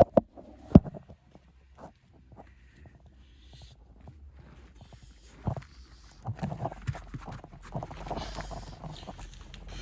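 Steel shovel digging into packed dirt, striking and scraping. A sharp knock comes just under a second in, then a run of thuds and scrapes from about five seconds on.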